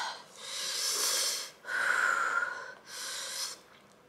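A woman breathing hard through her mouth, three long noisy breaths, the middle one with a faint whistle, as she reels from the burn of ghost-pepper noodles.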